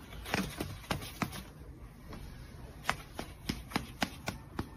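Scattered light taps and rustles, irregular and a few per second, as a cat paws and shifts on a woven scratcher bed while batting at a person's hand.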